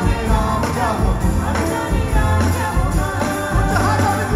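Live rock band playing loudly through a stage PA: singing over electric guitars, bass and drums with a steady beat, heard from among the audience.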